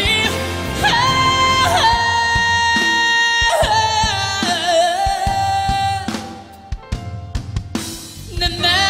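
A man sings a slow Korean ballad over band accompaniment, holding long notes with vibrato. About six seconds in, the voice stops and a short run of drum hits plays. The singing starts again near the end.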